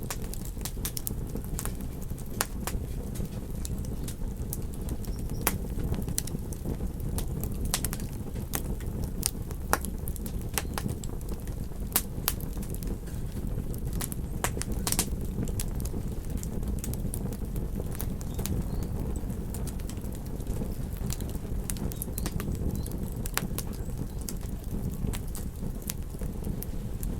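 Campfire crackling, with frequent irregular sharp pops and snaps over a steady low rumble of surf.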